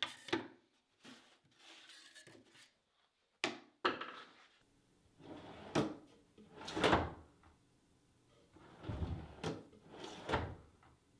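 Drawers running in and out on full-extension soft-close drawer slides in a plywood cabinet. A few sharp clicks in the first four seconds, then four longer sliding runs that swell and stop.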